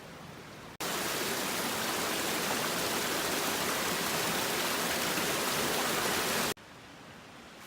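Creek water rushing, a loud, steady, even rush that cuts in sharply about a second in and cuts off sharply near the end.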